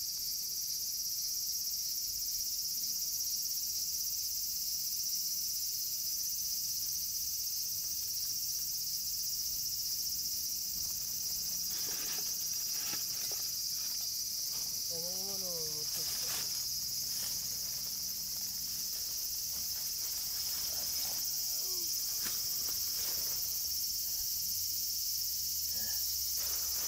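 A steady, high-pitched chorus of insects singing without a break.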